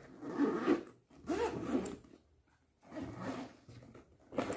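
Zipper of a Shimano hard-shell spinning sling bag being pulled closed around the lid, in several separate pulls.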